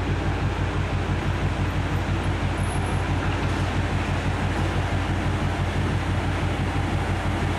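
Heavy machinery running steadily: a deep, even hum with a fast rumbling texture and no change in level.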